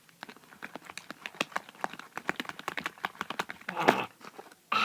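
Rapid, irregular clicking and tapping of a utensil stirring slime mixture in a bowl.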